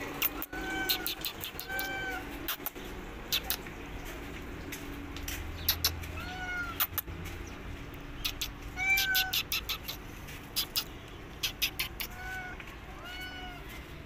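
Calico cat meowing: about six short meows, each rising then falling in pitch, mostly in pairs, with scattered sharp clicks between them.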